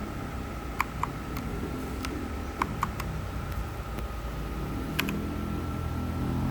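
Single key presses on a mechanical keyboard: about nine sharp clicks at uneven intervals, most in the first three seconds and the last about five seconds in. Behind them runs a steady hum with a thin high tone.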